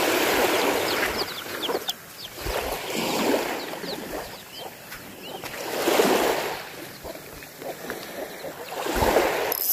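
Small waves washing up on a beach, a swell of surf about every three seconds, with small birds chirping.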